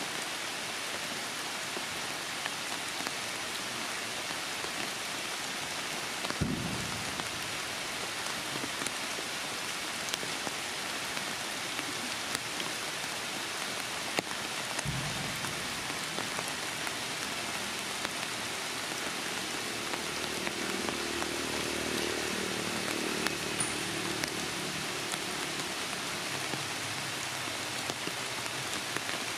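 Heavy rain falling steadily, a dense even hiss. Two brief low rumbles break in, about a third of the way through and again near the middle, and a faint low humming drone sounds under the rain in the second half.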